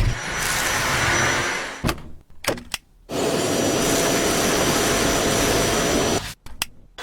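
A Dyson V7 Animal cordless stick vacuum running steadily, with a thin high whine over the rush of air. It runs in two stretches, cutting out abruptly about two seconds in and again near the end, with a few clicks in the gaps.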